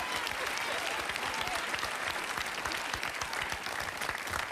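Studio audience and contestants applauding steadily.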